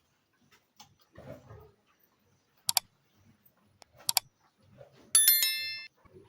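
Two sharp double clicks, then a bright metallic ding about five seconds in that rings out and fades within a second.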